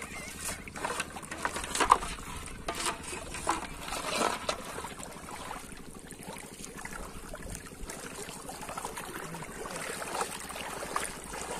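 Water splashing and sloshing as a person scoops water by hand and wades through shallow, weedy water: a cluster of irregular splashes over the first few seconds, then softer, steadier sloshing.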